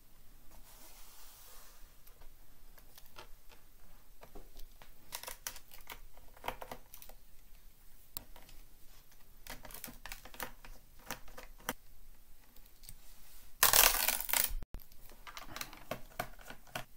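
Scattered small clicks and clinks of screws and a screwdriver working on a laptop's plastic bottom case, with one louder, noisy rattle lasting about a second roughly fourteen seconds in.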